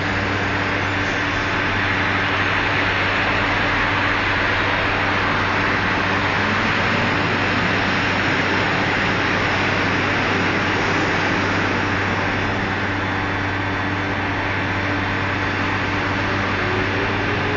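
Steady wash of city road traffic with a constant low hum underneath, swelling a little in the middle; a faint rising engine note comes through near the end.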